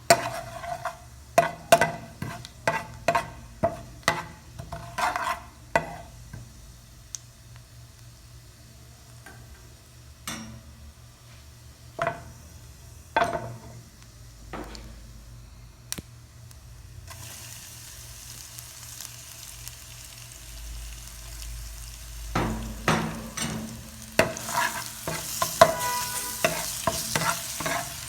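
A utensil knocking against a cooking vessel in quick strokes while food is stirred, thinning to scattered knocks. From about halfway, hot oil sizzling comes in, growing louder near the end as frying gets under way, with more knocks over it.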